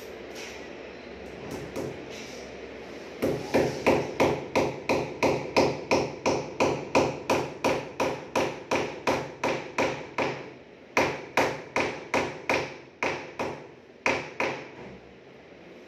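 A hammer tapping a small nail into a PVC wall panel: a few light taps, then a fast, even run of blows about four a second, a short pause, and a second, shorter run.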